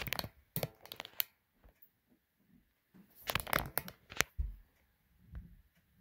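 Rustling, crinkling and clicking handling noise in two clusters, in the first second and again from about three to four seconds in, followed by a low bump.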